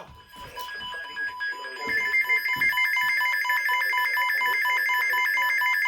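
Emergency Alert System transmission on NOAA Weather Radio station WWH33: harsh, rapidly chopped electronic data tones of the alert header, growing louder about two seconds in. It signals the start of a relayed winter storm warning.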